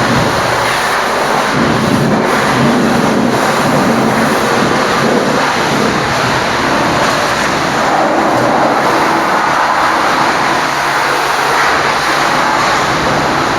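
High-pressure washer jet spraying water against a Scania truck, a loud, steady rushing hiss that swells and fades as the lance moves.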